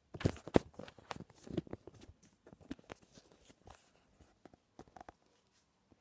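Close handling noise: a string of irregular knocks, clicks and rustles, loudest in the first second and thinning out until they stop about five seconds in.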